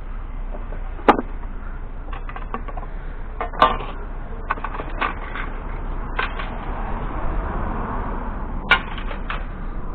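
Pieces of junk being handled and sorted by hand: scattered knocks and rattles, with three sharper clacks, about a second in, at about three and a half seconds, and near the end.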